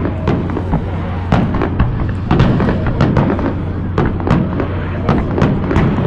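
Aerial fireworks shells bursting in a rapid barrage, two or three booms a second over a continuous low rumble.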